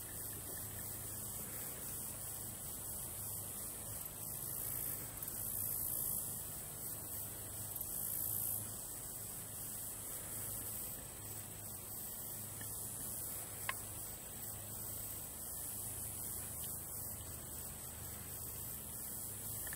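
Low steady electrical hum under a faint even hiss, with one small click about two-thirds of the way through. No gunshots.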